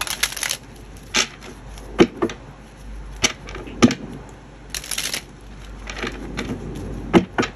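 Tarot deck being riffle-shuffled: a quick burr of cards riffling together at the start and again about five seconds in, with separate sharp taps and knocks of the deck being split, squared and handled in between.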